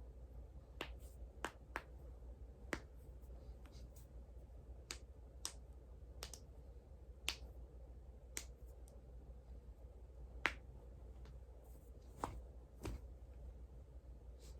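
Human joints being cracked by manipulation: a series of about fifteen sharp, irregular pops, the loudest about ten seconds in.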